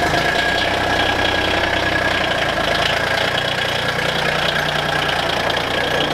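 Diesel engine of a John Deere Gator utility vehicle running steadily just after a cold start in below-zero cold, its note shifting about two seconds in as the Gator pulls away.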